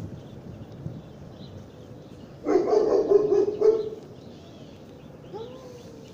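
A dog barking in a short, quick run about two and a half seconds in, louder than everything else.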